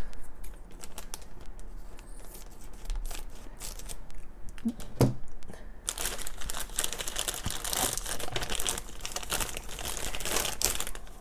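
Thin glossy plastic bag crinkling and rustling as hands work it open and reach inside, the crinkling growing denser and more continuous in the second half, with a soft knock about five seconds in.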